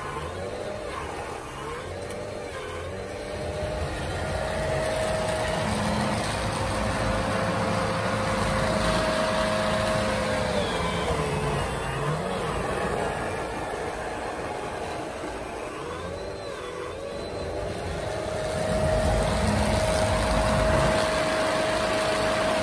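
Electric motors of a 3D-printed RC snowcat with a snowblower running, a steady whine that glides up and down in pitch with the throttle, over a steady rush of snow being blown.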